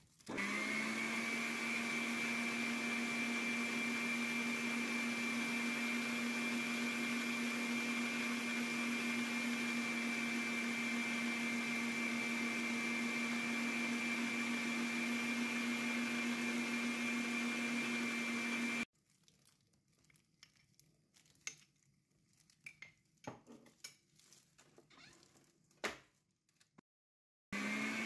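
Electric stand mixer motor starting up and running at a steady speed with its wire whisk beating cake batter: a constant hum with a high whine. It cuts off abruptly about two-thirds of the way through. Faint scattered clicks and knocks follow, and the motor starts again right at the end.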